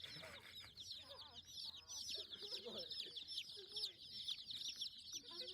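Chickens clucking, with a dense, unbroken high-pitched chirping over them.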